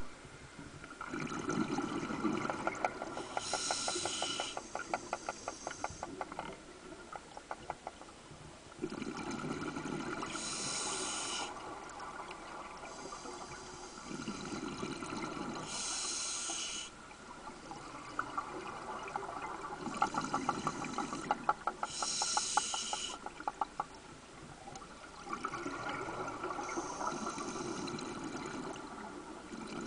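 A scuba diver breathing through a regulator, heard underwater: about five breath cycles, each a rush of exhaled bubbles and a short hiss from the regulator.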